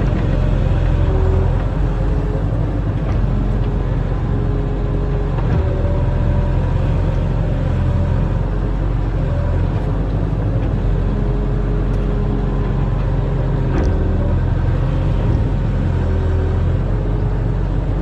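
Barge-mounted excavator's diesel engine running under load, a steady low rumble, with short whining tones from the hydraulics coming and going as the arm works.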